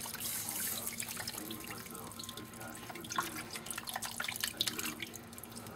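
A thin, watery mixture of cream soup and water being poured in a steady stream over turkey wings in a baking dish, splashing and dripping onto the meat.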